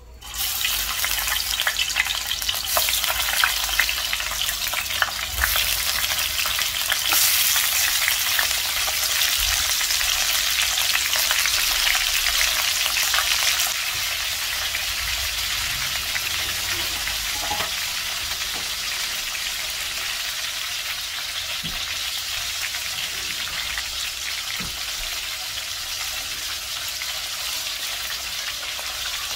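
Fish steaks frying in hot oil in a pan: a dense, crackling sizzle that starts suddenly just as the fish goes into the oil, strongest for the first half and then settling slightly quieter and steady.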